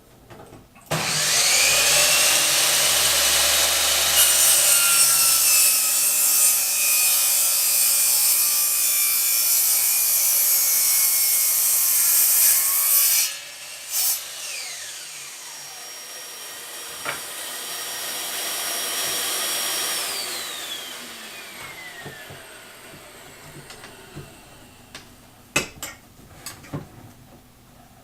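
Power saw started, cutting through a wooden board for about twelve seconds, then released and winding down slowly with a falling whine. A few sharp clicks follow near the end.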